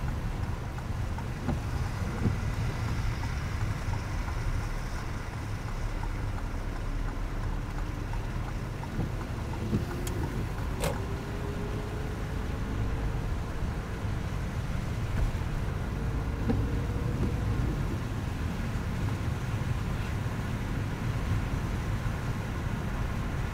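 Car driving on wet, slushy road, heard from inside the cabin: a steady rumble of tyre and road noise with a faint whine that rises and falls midway. Two sharp clicks come about ten seconds in.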